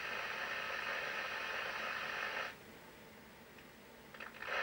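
Open-squelch receiver hiss from a CB radio's speaker with no signal on the channel. About two and a half seconds in it drops sharply to a faint residue as the squelch closes, and a short burst of hiss comes back near the end as it opens again.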